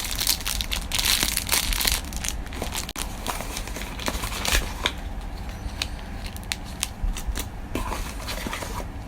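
Packaging being crinkled and handled while opened by hand: a dense crinkling for about the first two seconds, then scattered crackles and clicks.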